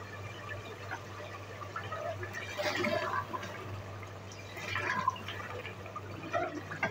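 Beef masala with yogurt just stirred in, bubbling and sputtering in an open aluminium pressure cooker while a wooden spoon stirs it. There are two louder stretches of stirring, about three seconds in and about five seconds in, over a steady low hum.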